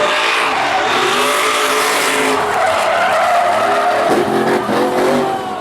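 Pickup truck engine revving hard, its pitch rising and falling, over the squeal of rear tires sliding as the truck drifts sideways through a turn.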